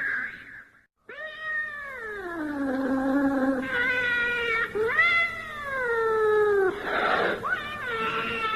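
A cat yowling: long drawn-out wails that slide down in pitch, starting just after a brief silence about a second in, then a second wail that rises and falls. A short rough burst follows near the end, then another meow.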